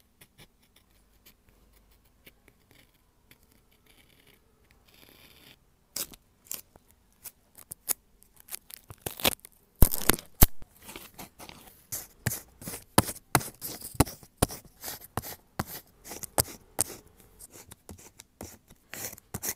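Scissors cutting paper for a journal page: short crisp snips with paper rustle. After a few seconds of faint scratching, the snips start about six seconds in and come rapidly from about ten seconds in.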